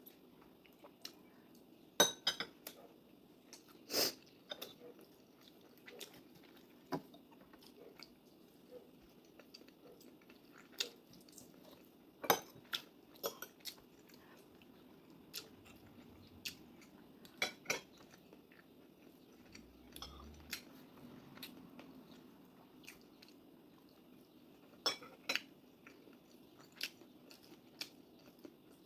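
A person eating a meal: cutlery clinking against a dish in scattered, irregular sharp clicks, with chewing in between.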